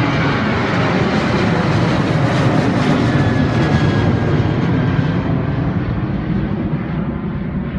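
Ryanair Boeing 737-800's two jet engines at takeoff thrust as it climbs out, a loud broad roar. The roar is strongest about three seconds in, then grows duller and fades as the plane climbs away.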